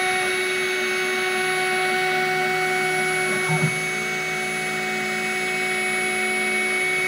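Spindle of a home-built CNC router running at steady speed while an engraving bit mills isolation tracks into a copper-clad PCB: a constant whine, with a lower hum that shifts pitch about halfway through.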